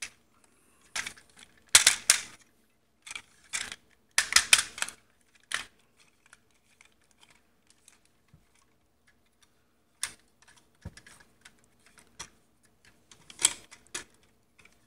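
Plastic parts of a Super Ginrai Transformers figure clicking and clattering as it is handled and posed, in short bursts of clicks. The clicks are densest from about one to five seconds in, go quiet for a few seconds, then come back near the end.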